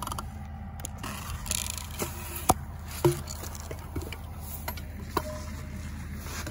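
Tractor engine running steadily in the background as a low, even hum, with a few sharp clicks scattered over it, the loudest about two and a half seconds in.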